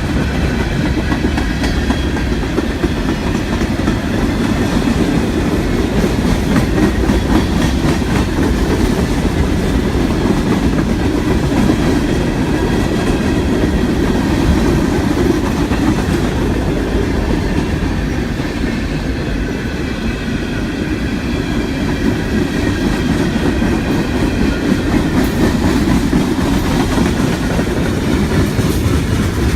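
Freight train cars rolling past, a steady rumble of wheels with clickety-clack over the rail joints.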